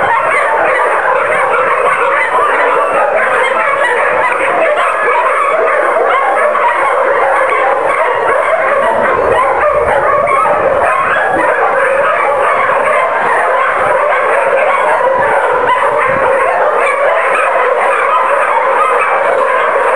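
Many kennelled dogs barking and yipping at once, making a steady, unbroken din.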